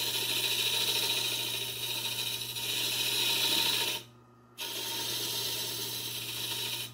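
Central Machinery 10 x 18 inch mini wood lathe running with a steady motor hum while a hand-held turning tool cuts a spinning wood blank, throwing off shavings. The cutting noise is loud and continuous, breaks off for about half a second around four seconds in as the tool lifts, then resumes.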